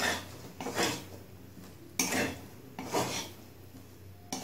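Metal spatula scraping and tossing pasta in a metal kadai, in repeated strokes about once a second.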